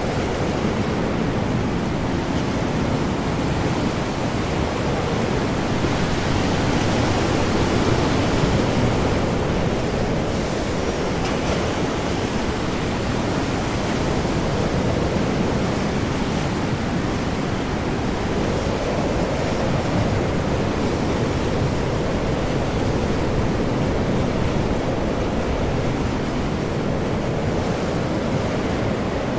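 Storm at sea: heavy waves surging under high wind, a dense, steady rush that swells and eases slowly, a little louder about seven to nine seconds in.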